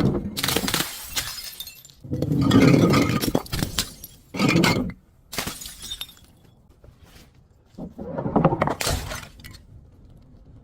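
Glass breaking and crunching in about five loud bursts of shattering with crackling, the last near the end, followed by quieter tinkling.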